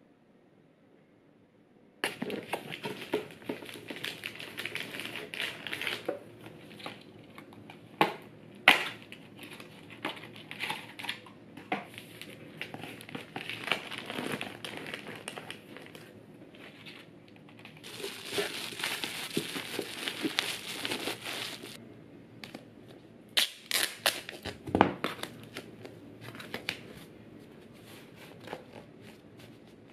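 Packing a cardboard shipping box by hand: crinkling and rustling of packaging with sharp knocks and taps as small boxes are set in, starting about two seconds in. There is a longer stretch of steady rustling a little past the middle.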